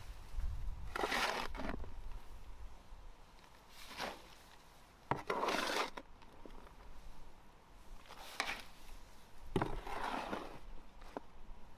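Dry fallen leaves and twigs rustling and crackling in four short bursts spread over several seconds.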